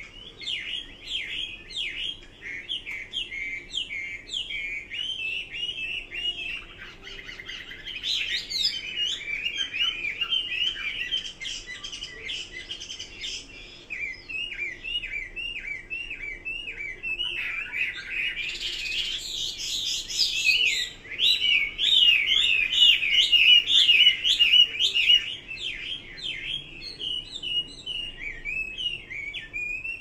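Caged Chinese hwamei (melodious laughingthrush) singing a long, fast, unbroken run of short, varied whistled notes, louder for several seconds from about 18 seconds in.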